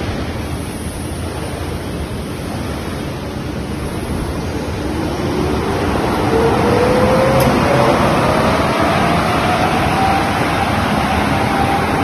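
Horizontal flat-glass washing and drying machine running: a steady rushing noise from its blowers and washing section. From about halfway through it grows louder, and a whine rises slowly in pitch.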